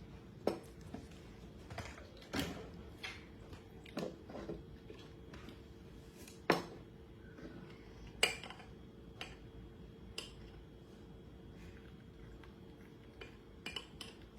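Spoon clinking against a bowl of porridge during feeding: about nine sharp clinks at irregular intervals, a second or two apart, with a few quieter scrapes.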